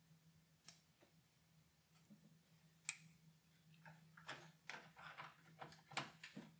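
Faint clicks and rustles of plastic power connectors and wire bundles being handled inside a desktop computer case, as a power diverter is fitted to the motherboard power connector. A single sharper click comes about three seconds in, then a quick run of clicks and rustles near the end, over a low steady hum.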